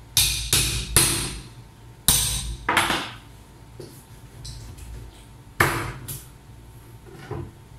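Large kitchen knife chopping through talakitok (trevally) steaks and bone onto a plastic cutting board: seven hard chops in three groups, three, then two, then two.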